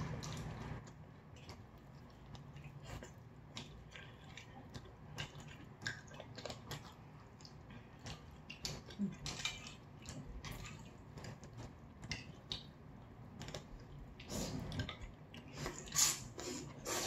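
Quiet eating: scattered clicks of cutlery against dishes, with chewing, busier near the end.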